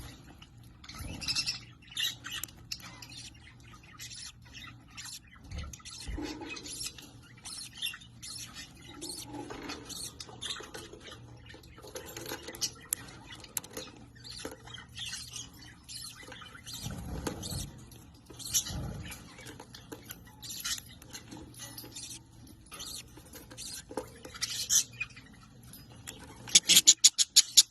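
Small birds chirping and twittering in short, scattered calls. Near the end comes a quick run of loud, sharp clicks.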